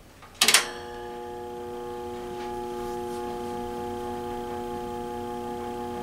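A switch clicks, then the motor of a vintage ILG WindowAire box fan starts and runs with a steady electrical hum of several pitches, growing slightly louder over the first couple of seconds as it spins up. The motor hum is abnormally loud; the owner doubts it is a loose winding and hopes a varnish could quiet it.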